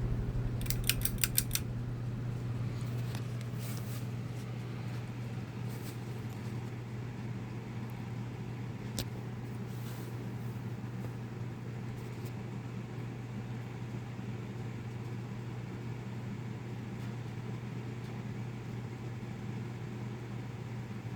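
2007 Harbor Breeze Armory 42-inch ceiling fan running with a steady motor hum. A quick run of small metallic clicks comes about a second in, and a few single ticks follow later.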